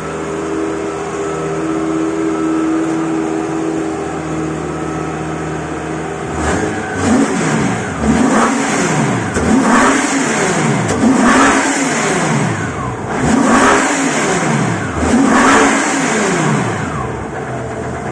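An engine idling steadily, then revved several times in a row, its pitch rising and falling with each rev, before settling back toward idle near the end.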